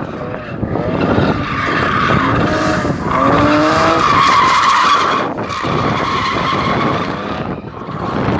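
BMW drift car sliding sideways through a corner, its tyres squealing steadily while the engine revs up, rising in pitch twice about two to three seconds in. The squeal is loudest around four to five seconds in, then drops briefly and carries on as the car goes away.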